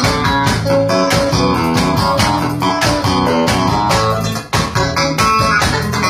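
Live instrumental jam: electric guitar and an arranger keyboard playing an upbeat tune over a steady beat. There is a brief break about four and a half seconds in.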